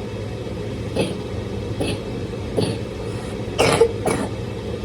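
Steady hum of a kitchen range-hood exhaust fan, which is running noisily. Several short, sharp sounds cut in over it about once a second, the loudest a little over halfway through.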